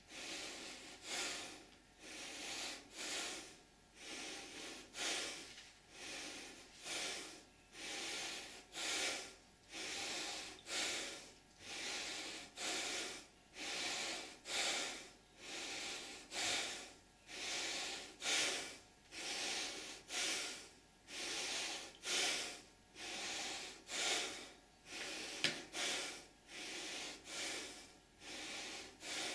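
A young man breathing hard and fast through nose and mouth, about one loud breath a second, out of breath from a heavy bench press set. A single sharp click sounds late on.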